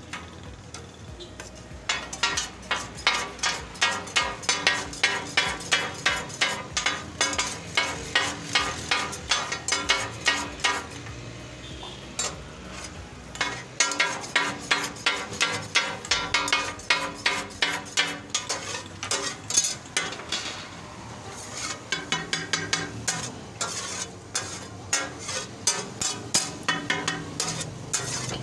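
A metal spatula blade chopping tomatoes and green chillies on a large flat tawa griddle, a rapid clacking of metal on metal at about three strokes a second. It comes in three long runs with short breaks, over a light sizzle of frying.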